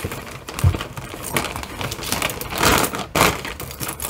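Hands rummaging through a pile of costume jewelry: small metal pieces clicking and clinking against each other amid rustling, with a soft thump less than a second in.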